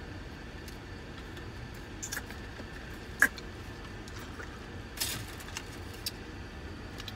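Steady low hum of a car's cabin with a few small handling noises: a sharp click a little past three seconds in, then a brief crinkle of aluminium foil around a taco at about five seconds, followed by a couple of faint ticks.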